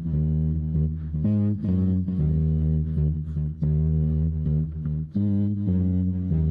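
A bass-heavy pop song line performed with the mouth: a deep, buzzing bass-guitar-like line of held notes that shifts pitch every half second or so, with brief breaks between phrases.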